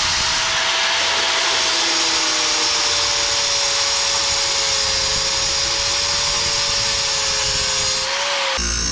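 DeWalt angle grinder running at full speed with its disc cutting into a metal bracket clamped in a vise: a steady high whine over a harsh grinding hiss. Near the end the sound switches abruptly to a different grinding noise with a deeper hum.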